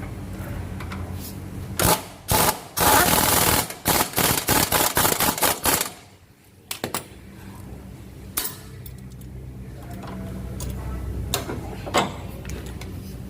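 Impact wrench hammering on a shock absorber mounting nut in a few rapid bursts from about two to six seconds in. After that a low steady hum and a couple of single metallic clicks remain.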